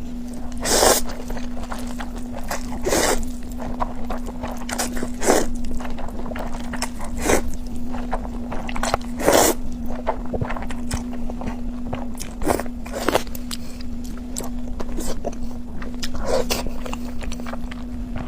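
Close-miked eating of spicy noodles: short, sharp mouth sounds of biting and eating come every couple of seconds, over a steady low hum.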